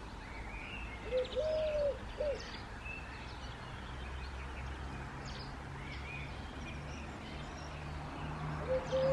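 A dove cooing, a three-note phrase of a short note, a long held note and a short closing note, about a second in and again near the end. Small birds chirp faintly in the background.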